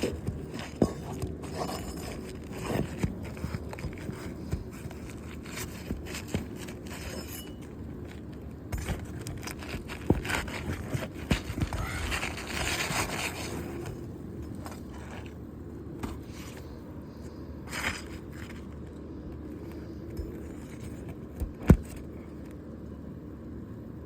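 Asphalt roof shingles being scraped and pried loose during removal of a creased shingle: irregular scraping with scattered clicks and knocks, a longer spell of scraping around the middle and one sharp, louder knock near the end.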